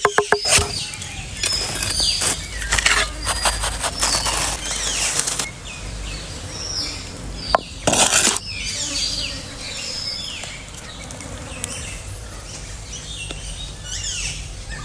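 Songbirds chirping over and over. Irregular bursts of rustling and crackling noise come and go with them, loudest a couple of seconds in and again about eight seconds in.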